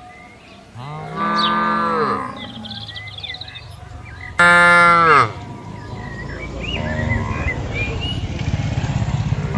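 Cows mooing: two long, loud calls, about a second in and about four and a half seconds in, the second the louder, each dropping in pitch as it ends, and a fainter moo near seven seconds.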